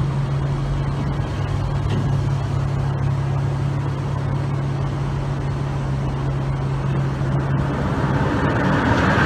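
A boat engine running with a steady low hum over a wash of noise. Near the end a rushing, splashing noise builds as the sand-loaded barge rolls over into the water.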